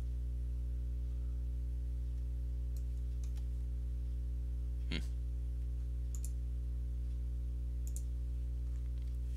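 Steady low hum with a handful of sharp computer mouse clicks scattered through it, the clearest about five seconds in.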